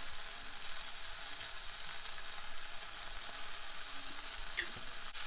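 Roti noodles and vegetables frying in a wok, a steady sizzle.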